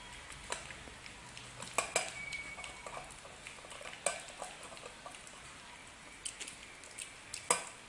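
Small poodle eating dry kibble from a stainless-steel dog bowl: irregular clinks and knocks of kibble and muzzle against the metal, the loudest near the end, one pair about two seconds in followed by a brief ring of the bowl.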